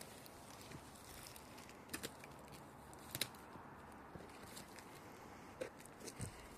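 Faint scattered crunches and clicks of a hiker's footsteps on a rocky mountain slope over a quiet background hiss, the sharpest click about three seconds in.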